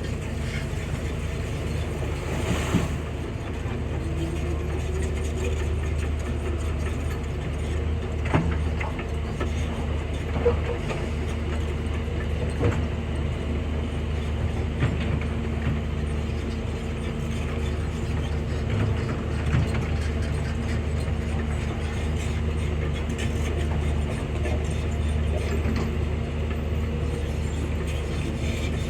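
Large hydraulic excavator's diesel engine running steadily with a low drone, with scattered metallic clanks and knocks as it works.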